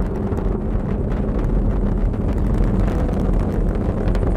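Falcon 9 rocket's first-stage engines heard from the ground during ascent: a steady low rumble with fine crackling.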